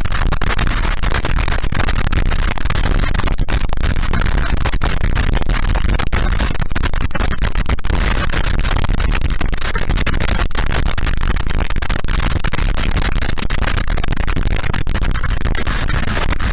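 Loud, steady wind rush and road noise on a motorcycle-mounted camera microphone while riding, with the motorcycle's engine buried in it.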